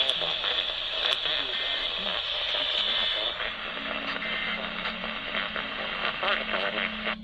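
Radio static: a dense hiss with scattered crackles over a faint broadcast. A low steady hum comes in about halfway, and the noise cuts off abruptly near the end.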